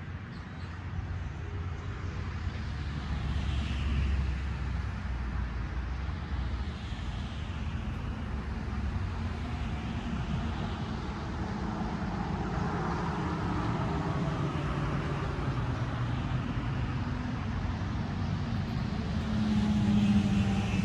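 Steady low rumble of road traffic, with a few faint swells of passing-vehicle noise.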